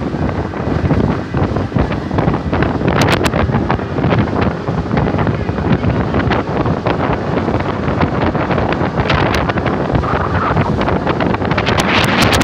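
Wind buffeting the phone's microphone aboard a fast-moving motorboat, mixed with the rush of water past the hull. A few sharp knocks cut through about three seconds in and again near the end.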